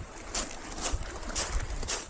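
Footsteps of someone walking at a steady pace, about two steps a second, with wind rumbling on the microphone.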